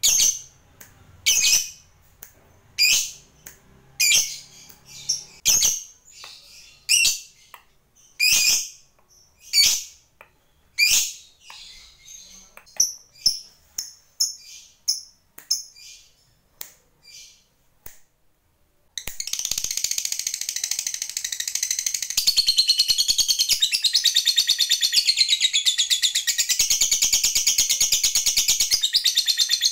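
Fischer's lovebird calling: sharp, high single chirps about one every second and a half, growing fainter, then after a short pause a continuous high chattering trill, the long 'ngekek' that keepers prize.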